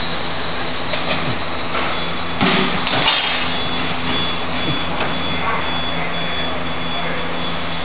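Tire-shop machinery running with a steady hum, with two short knocks about two and a half and three seconds in as a tire is worked off its rim on a tire changer.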